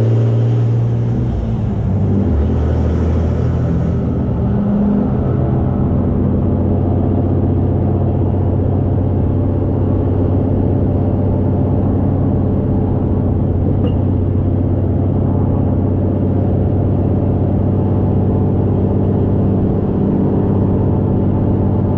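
Cummins inline-six turbodiesel in a 2013 Ram pickup running under way. The engine pitch shifts over the first few seconds, then settles into a steady drone at constant speed.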